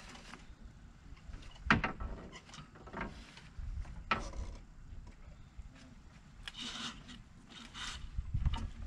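Handling noise from working the jib and rigging on a small sailboat's foredeck: a couple of sharp knocks, scattered clicks, and a stretch of rustling near the end.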